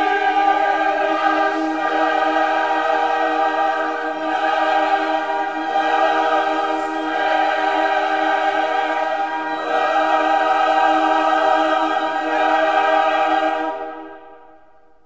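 Background music of long held, choir-like chords, fading out near the end.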